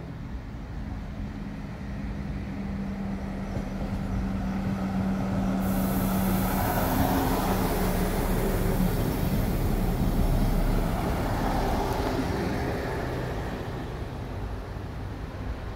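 Two coupled ÖBB class 5047 diesel railcars passing close by: a steady low engine drone, then swelling rumble and wheel-on-rail noise that peaks midway and fades as the train moves off.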